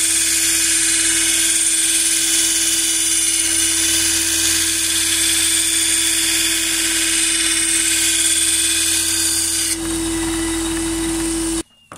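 Sealey belt/disc sander grinding the edge of a steel lawn mower blade on its sanding belt: a steady high hiss of abrasion over a steady motor hum. The grinding hiss drops about ten seconds in as the blade comes off the belt, and the machine sound cuts off abruptly shortly before the end.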